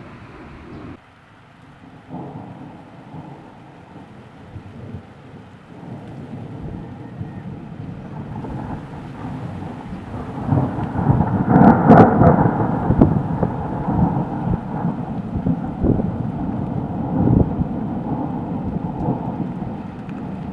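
Thunder rolling from a thunderstorm: a low rumble that builds from about halfway through, peaks a little later, and keeps rumbling to the end, with rain falling.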